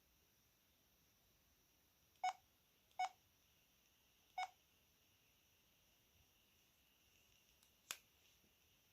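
VK530 mobile phone keypad beeping: three short key tones, the first two close together and the third a little over a second later, then a single sharp click near the end.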